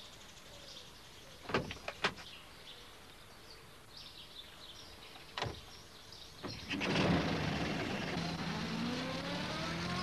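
A few light clicks, then a door shutting about five seconds in. The small red post van's engine starts and runs, its pitch rising steadily as it pulls away.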